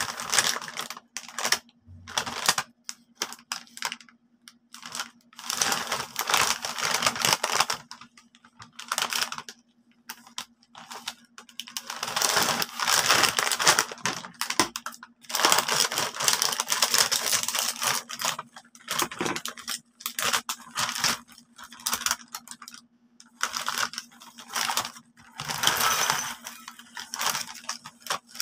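Plastic snack bag of glazed popcorn crinkling in the hands in repeated bursts as it is handled and opened. Near the end, popcorn tumbles from the bag into a ceramic bowl.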